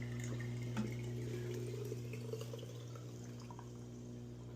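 Dishwasher drain pump running with a steady hum while water runs and trickles; the drain line is clogged, so the water backs up into the sink instead of draining.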